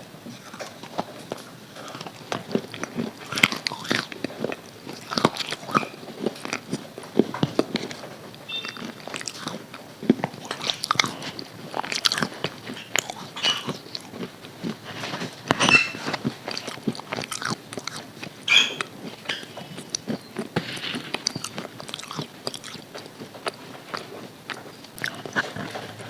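A person biting into and chewing crispy KFC fried chicken, with irregular sharp crunches of the coating.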